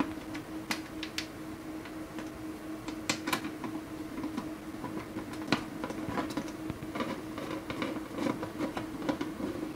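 A hand screwdriver turning screws in a plastic light housing, making irregular clicks and scrapes. Under it runs a steady hum, which is the noisy industrial UPS with its server fans.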